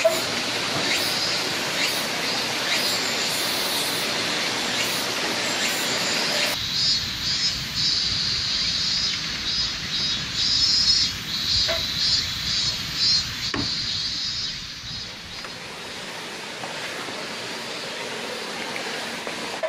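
Outdoor forest ambience: a steady rushing hiss with a high, insect-like buzz over it. About six and a half seconds in, the sound cuts abruptly: the low rush drops away and the high buzz pulses unevenly, then it grows quieter near the end.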